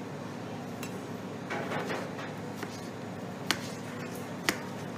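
Chef's knife slicing a cucumber into strips on a chopping board, with a short scraping stretch and then two sharp taps of the blade on the board about a second apart, over a steady background hum.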